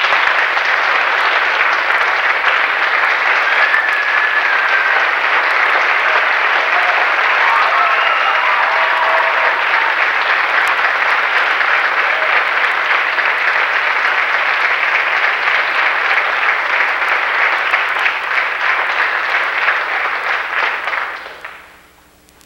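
Audience applauding steadily for about twenty seconds, with a few faint voices calling out in it, then dying away quickly near the end.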